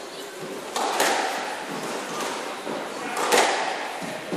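Squash ball struck during a rally: two sharp knocks about two and a half seconds apart, each followed by echo in the enclosed court.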